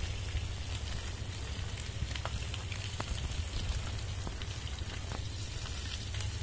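Pangas fish sizzling steadily as it fries in hot oil over an open fire, with scattered sharp crackles and a low steady rumble underneath.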